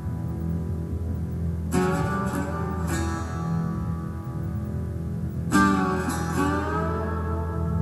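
Soundtrack music led by plucked guitar over a steady low bass, with new chords struck about two seconds in and again near the end.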